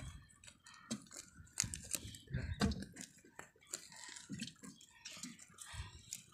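Irregular clicks, crackles and small splashes of water being stirred by hand.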